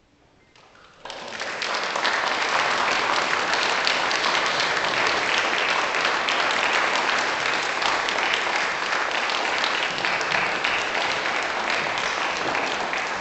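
Audience applause, breaking out suddenly about a second in and holding as dense, steady clapping, easing a little near the end.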